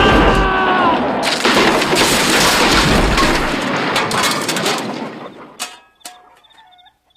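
A loud, dense burst of blasts and crashes that dies away after about five seconds, leaving a few faint clicks.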